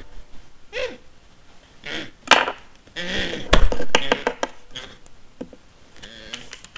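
A few sharp knocks and thumps on a wooden tray, the loudest about three and a half seconds in, followed by lighter clicks and taps, between short vocal noises from a person.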